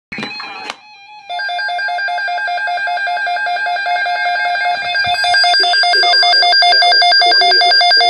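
Weather radio receivers sounding their alert alarm: a fast, even electronic beeping, with a second alarm joining about halfway through so the sound grows louder and fuller. It follows a brief burst of noise at the very start. The alarm signals a newly received winter storm warning.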